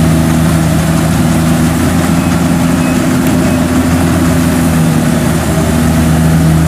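Diesel engines of Kubota DC70 combine harvesters running steadily under load with a low, even drone, as a stuck harvester is towed up a muddy bank it cannot climb on its own.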